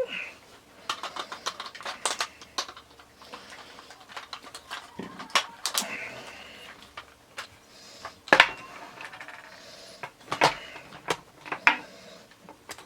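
Handling clatter of Dragonzord toy figures of plastic and die-cast metal: scattered clicks and knocks as the figures and their parts are picked up and set down on a hard surface, with two sharper knocks in the second half.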